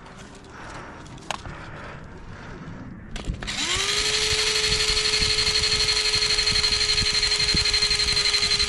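An electric alarm siren starts about three seconds in. It swoops briefly up in pitch, then holds one loud, steady, buzzing tone with an even pulse. This is the airsoft field's signal between rounds.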